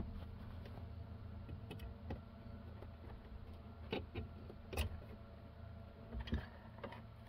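A handful of light clicks and knocks from a small plastic fuse and wiring connector being handled behind a truck's dashboard, over a steady low hum.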